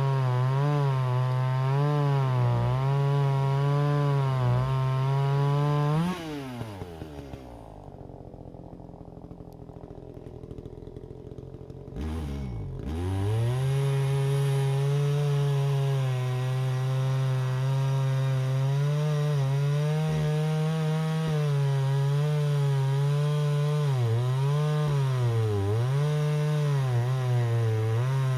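Two-stroke chainsaw cutting wood, its engine pitch dipping and recovering as the chain bites. About six seconds in it drops to a low idle, then revs back up around thirteen seconds and cuts again.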